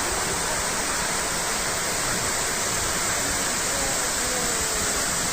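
Waterfall: the steady rush of falling water, constant throughout.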